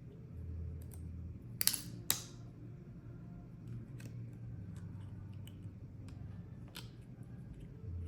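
Small plastic parts of an HTC Vive 3.0 Tracker clicking and tapping as they are handled and pressed into place, with two sharper, louder clicks about two seconds in.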